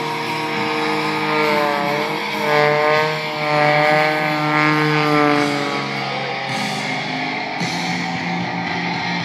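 An aerobatic airplane's engine and propeller rise and fall in pitch through a maneuver, over rock music playing on the airshow loudspeakers.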